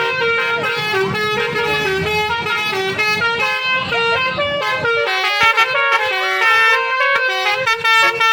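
Basuri telolet multi-tone air horns on a bus playing a quick melody of stepping horn notes, several tones at once. A low rumble runs underneath for the first five seconds or so, then drops away and the notes become choppier.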